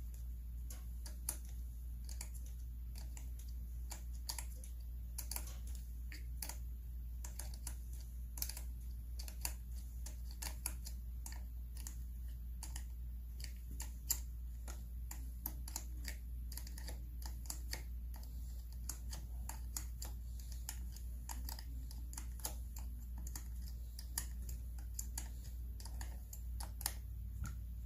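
Scattered light clicks and taps of a small hand tool working on a Homelite chainsaw's engine, over a steady low hum.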